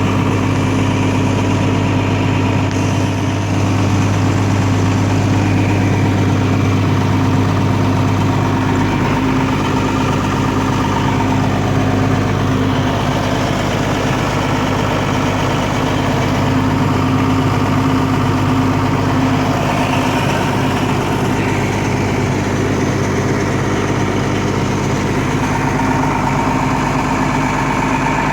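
1998 John Deere 7405 farm tractor's diesel engine running steadily at idle, an even low hum that does not change.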